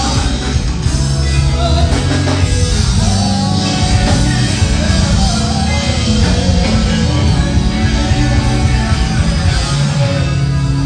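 A live band playing loudly and steadily: drums and electric guitar with a singer on microphone.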